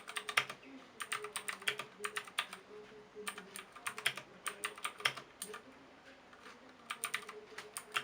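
Typing on a Fantech Maxfit 61 mechanical keyboard: quick runs of key clicks, with a pause of about a second and a half in the second half before the typing picks up again.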